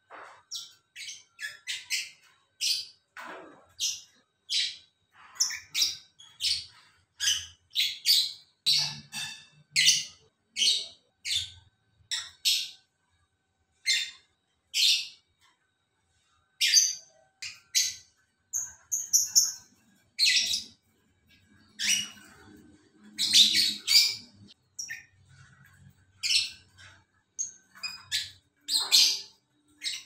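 Caged lovebirds chirping: a rapid string of short, shrill chirps, broken by a couple of brief pauses.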